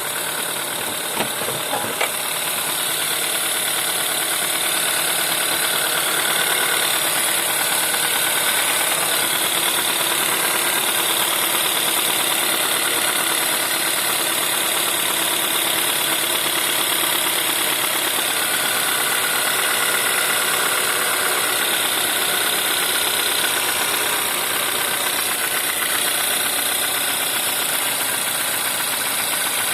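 1.4 TSI (CAVD) petrol engine idling cold with a knock, the cold-engine knock this engine is known for. A few sharp clicks sound about one to two seconds in.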